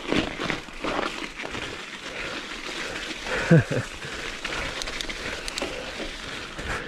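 Mountain bike tyres crunching and crackling through deep fresh snow. About halfway through comes one brief, louder sound that falls in pitch.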